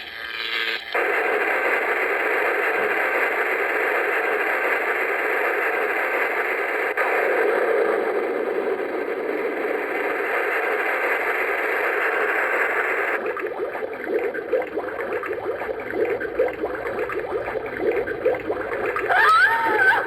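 A Halloween flashlight toy's small speaker playing spooky sound effects: a long steady hissing, gurgling effect, changing to a more fluttering one partway through, and near the end a laugh-like sound with wavering pitch begins.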